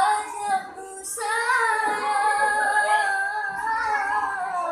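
A young boy singing a dangdut song solo in a high treble voice. About a second in he takes a short breath, then holds a long note with a wavering vibrato.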